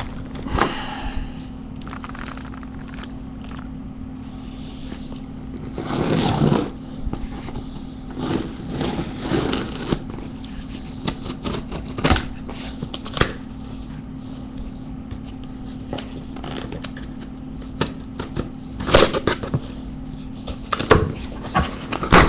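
Cardboard shipping case being handled and opened: scattered knocks and scrapes of cardboard and packing tape, with a longer scraping rustle about six seconds in and a cluster of sharper clicks and knocks near the end.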